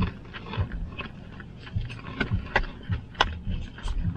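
A person chewing a mouthful of hamburger close to the microphone, with irregular sharp wet mouth clicks.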